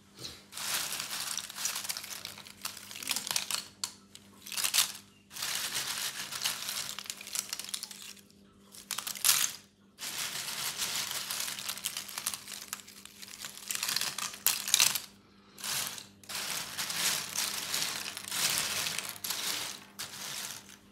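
A hand stirring and rummaging through a pile of dry, curled wood-bark chips: crisp rustling and crackling in a series of bursts, with short pauses between them.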